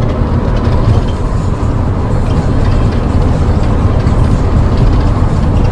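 Steady low rumble of a bus-based motorhome's engine and tyres, heard inside the cab while cruising at highway speed.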